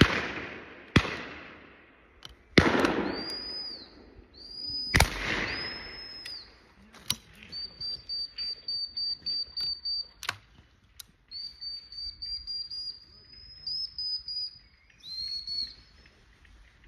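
Shotgun shots on a driven shoot: three loud reports at the start, about two and a half seconds in and about five seconds in, each followed by a long rolling echo, with fainter, more distant shots between them. Over the second half there are high, thin chirps repeated in quick runs of several a second.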